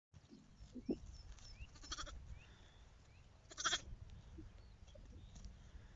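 Sheep bleating: two loud high bleats about two and three and a half seconds in.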